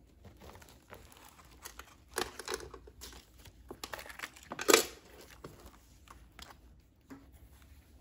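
Paper pages of a handmade junk journal rustling and crinkling as they are opened and turned by hand, in several short bursts. The loudest is a sharp rustle a little past halfway.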